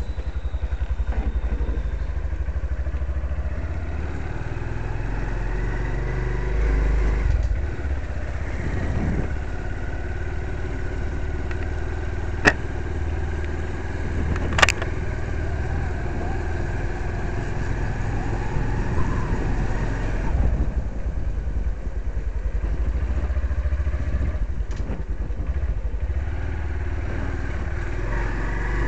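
Honda Verza motorcycle's single-cylinder engine running steadily as the bike is ridden at low speed, with two sharp clicks about two seconds apart midway through. The engine runs on thick Mesran B diesel engine oil, which the owner says makes it run smoothly.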